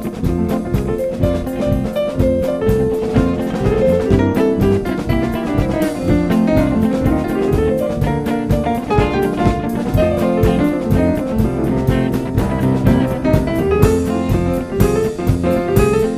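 Live band playing an upbeat jazz number, with electric bass guitar, guitar and drum kit keeping a steady beat.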